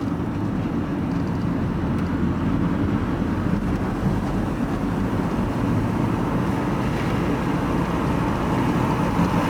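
Van engine and road noise from inside the cab while driving, a steady low rumble that does not change.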